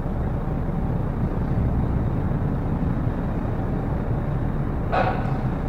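Steady low rumble of a car ferry docking, its engines and vehicles running, with a short hiss-like burst of noise about five seconds in.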